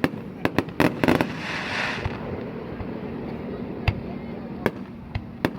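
Fireworks going off in a display: irregular sharp bangs, several in quick succession early, then single reports spaced out. A brief hiss comes about one and a half seconds in.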